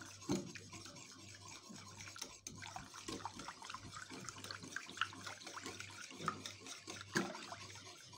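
Wire whisk stirring cream and powdered sugar in a bowl: a continuous wet swishing with scattered light clicks of the wires against the bowl. A low steady hum runs underneath.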